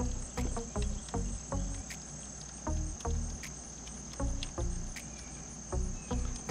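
Steady high-pitched insect trill, like crickets, runs throughout. Over it come irregular soft knocks, clicks and rubbing, a few a second, from hands holding the new brake vacuum pump on the engine and starting its screws.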